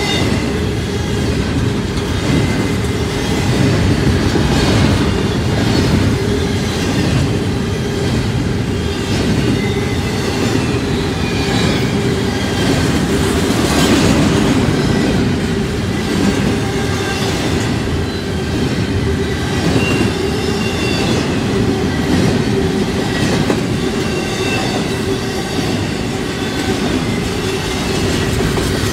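Double-stack intermodal well cars of a freight train rolling past: a loud, steady rumble with wheels clicking over rail joints and a thin steady squeal from the wheels.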